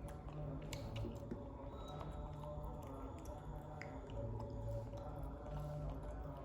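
Baby monkey chewing fruit: small wet smacks and clicks over a steady low hum.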